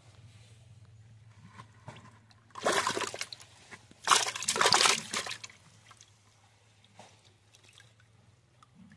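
Water splashing and sloshing in two loud bursts of about a second each, the first about two and a half seconds in and the second about four seconds in.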